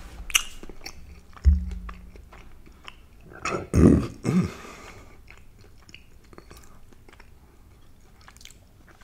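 Close-miked chewing: soft, wet mouth clicks and smacks. A low thump comes about a second and a half in, and a few louder low sounds come around four seconds in.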